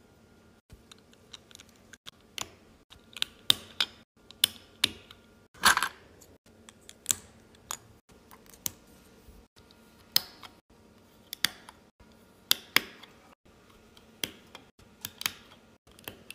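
Plastic Lego bricks clicking as they are snapped together and handled on a table: scattered sharp clicks at irregular intervals, the loudest about five and a half seconds in.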